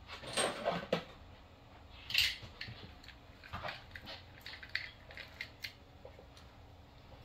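Irregular clicks, rattles and scrapes of small hard parts being handled, with a cluster of clatter in the first second and one sharper, louder scrape a little after two seconds.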